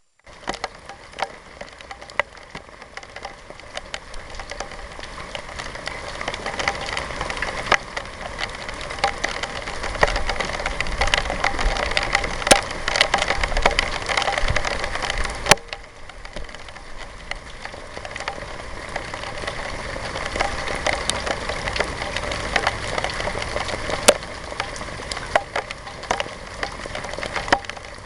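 Rain falling steadily, with many sharp individual drop hits on a surface over a constant patter. It grows louder through the first half, drops suddenly about halfway, then carries on evenly.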